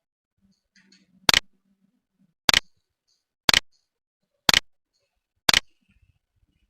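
Five sharp clicks, evenly spaced about a second apart.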